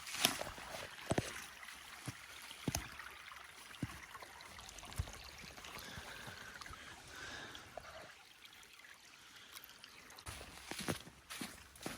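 Faint rustling and shuffling over a light steady hiss, with scattered sharp knocks and clicks, loudest near the start and again near the end. These are the handling and movement sounds of someone getting a drink out of the snow.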